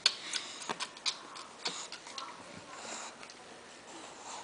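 Irregular sharp clicks and taps as an English bulldog and her young puppies move about in a wooden whelping box, the loudest right at the start.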